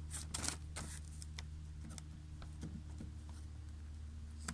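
Knife tip cutting a paper deer tag against a plastic truck bed liner: a few small scratchy clicks, most in the first second and a half, over a steady low hum.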